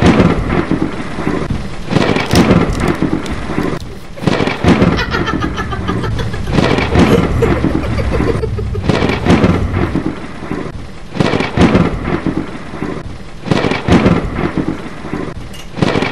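Thunderstorm sound effect: loud cracks and rumbles of thunder every couple of seconds over a steady hiss of rain.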